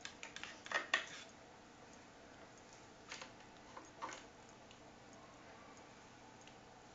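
Faint, scattered light taps and clicks from a kitten batting and pulling at a TV antenna cable: a quick cluster in the first second, then a few more around three to four seconds in.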